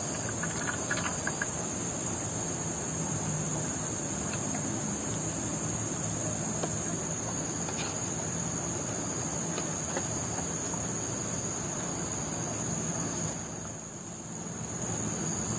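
Steady, high-pitched drone of an insect chorus, easing slightly for a moment near the end.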